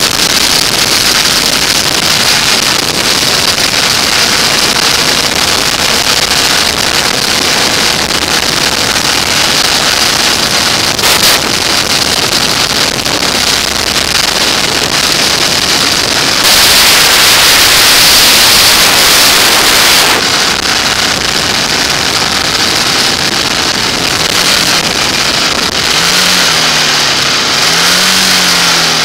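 Motorcycle riding at road speed, the sound dominated by a steady rush of wind noise on the microphone, which grows louder for a few seconds past the middle. Near the end the engine comes through, its pitch rising and falling twice as the bike takes a bend.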